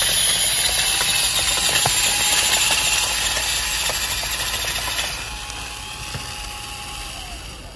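The small electric motor of a homemade model super seeder spins its rotor through loose sand: a hiss of churning sand over a thin motor whine. About five seconds in, the churning drops away and the whine runs on more quietly, fading near the end. It runs off a wired controller, which the builder says keeps it from running at full power.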